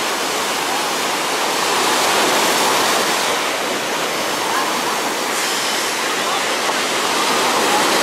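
Small waves breaking at the shoreline and foam washing up the sand: a steady rush of surf that swells slightly as each wave comes in.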